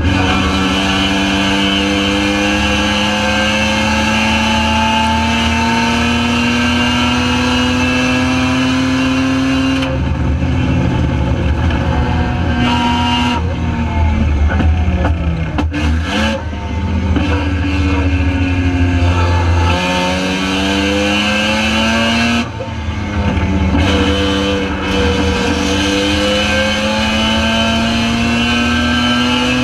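Spec RX7 race car's 12A rotary engine under full throttle. Its pitch climbs steadily for about ten seconds, drops suddenly at a gear change, falls away while the car slows about halfway through, then climbs again with two more sudden drops at gear changes.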